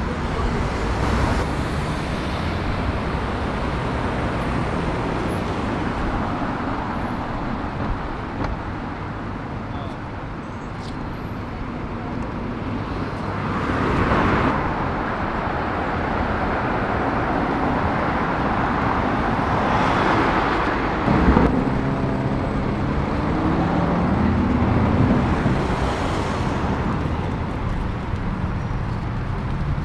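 Busy city street traffic: engines and tyres of passing cars and buses. Louder swells of vehicles driving past come around the middle and again about two-thirds of the way in, the second with an engine note that rises and falls.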